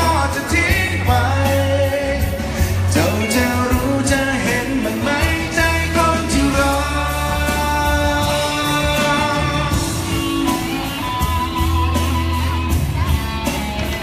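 Male pop-rock singer singing a song live through the stage PA, backed by a band with bass, drums and guitar.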